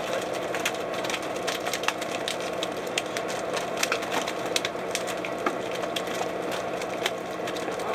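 Steady drone of a purse-seine fishing boat's engine and deck machinery, with scattered sharp clicks and cracks over it.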